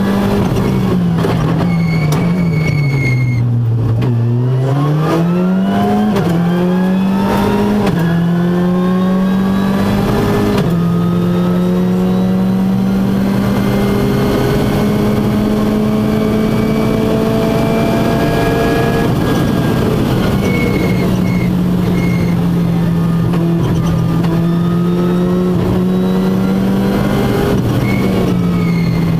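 Ford Fiesta R5 rally car's turbocharged four-cylinder engine heard from inside the cabin at speed: the revs drop to a low pitch and climb back about four seconds in, step up through a few quick gear changes, then hold high and slowly rise along a straight, with a couple of smaller dips near the end.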